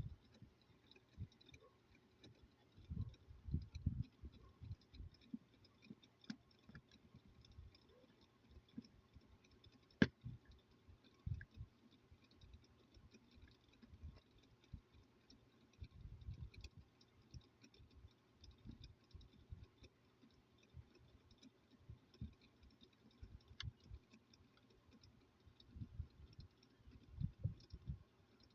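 Faint, irregular clicks and soft low knocks of a plastic phone charger being handled and taken apart, with one sharper click about ten seconds in.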